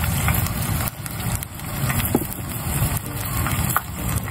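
Tempura of bracken and ostrich-fern fiddleheads deep-frying in a pan of oil, a continuous sizzle, over a low rumble.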